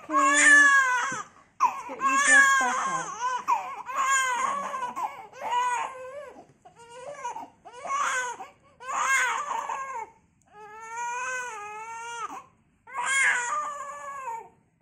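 Newborn baby crying hard: about nine wailing cries in a row, each a second or so long, with short breaks for breath between them.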